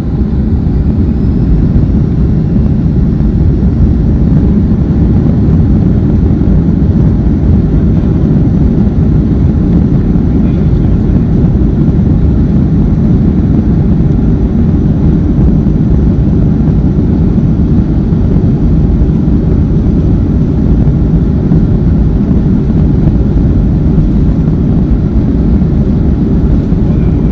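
Boeing 737-400's CFM56-3 turbofan engines at takeoff power, a loud steady rumble that swells in the first second and then holds.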